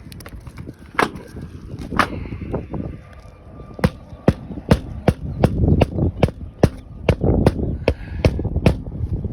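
Hammer blows on an asphalt shingle roof: two strikes about a second apart, then a steady run of about two to three strikes a second from about four seconds in.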